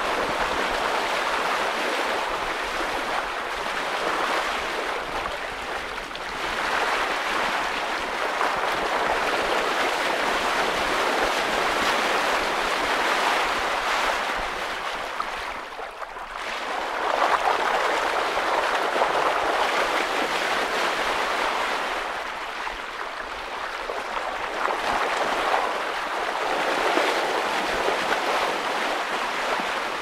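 Bow wave of a sailing yacht under sail, water rushing and splashing along the hull as it cuts through choppy sea. It swells and eases every few seconds, with a brief lull about halfway.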